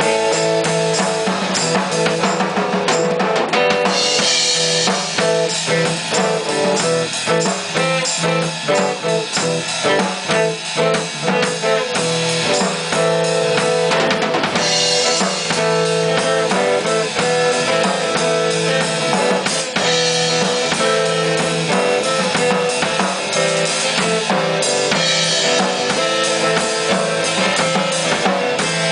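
Live drum kit and electric bass guitar jamming: a steady beat on kick, snare and cymbals under held bass notes, with cymbal crashes about four seconds in and again around fourteen seconds.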